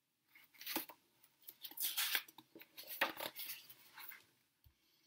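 Pages of a picture book being turned: several short, soft paper swishes and rustles spread over about four seconds.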